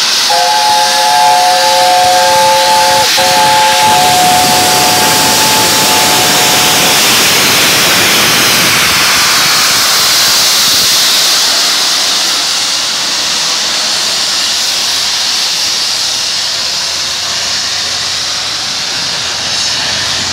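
Steam locomotive 60163 Tornado sounding its whistle: a chord of several notes, broken briefly about three seconds in and stopping about seven seconds in. A loud steady hiss of steam runs throughout as the train pulls away.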